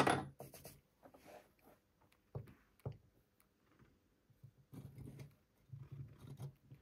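Soldering work on a white metal wagon kit: a sharp knock at the start, then scattered faint clicks and handling rustles as the soldering iron and solder are worked on the metal.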